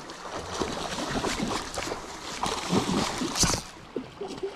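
Hooked sockeye salmon splashing and thrashing at the surface close to the bank, a run of irregular splashes over the rush of moving river water, with one louder splash about three and a half seconds in.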